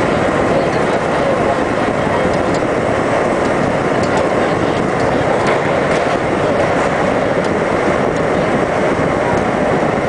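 R-32 subway train running at speed through a tunnel: a steady, loud noise of steel wheels on rail heard from inside the car, with a few faint clicks over rail joints.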